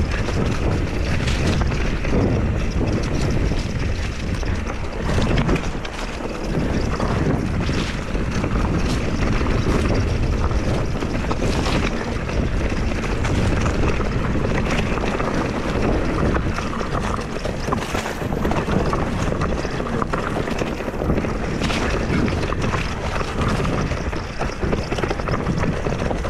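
Wind buffeting the microphone while an Ibis Mojo HD4 mountain bike descends a rocky dirt trail at speed: tyres rolling over loose dirt and stones, with frequent knocks and rattles from the bike over bumps.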